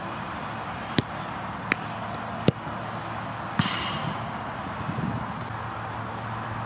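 Football being kicked and bouncing: a series of sharp thuds about a second apart. A harder hit about three and a half seconds in is followed by about a second of hiss, all over a steady low outdoor hum.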